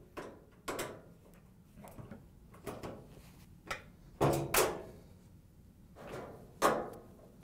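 Nut driver and sheet-metal dryer cabinet clattering as the front-panel screws are backed out: a string of separate knocks and scrapes, about six or seven, with a brief metallic ring after one about four seconds in.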